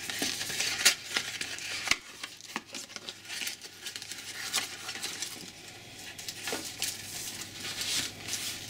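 Card packet of mirror-effect foil leaves being opened and unfolded by hand, with the thin foil sheets slid out: rustling and crinkling of card and foil, with a few sharp taps and clicks.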